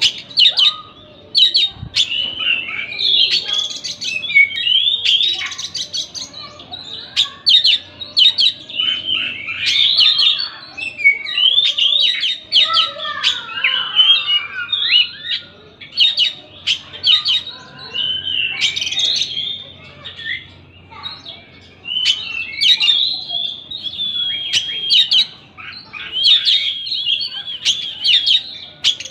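Oriental magpie-robin (kacer) singing a long, varied song of clear whistles, quick trills and sharp chirps, broken by short pauses.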